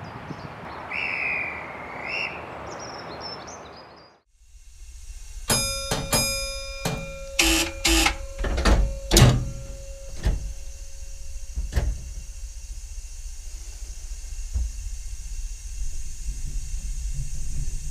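Class 205 diesel-electric multiple unit standing at the platform. First comes an even outdoor rush with a short high chirp. Then, from inside the cab, a run of sharp clicks and knocks, a few ringing briefly like a bell, over the low steady rumble of its idling English Electric four-cylinder diesel engine.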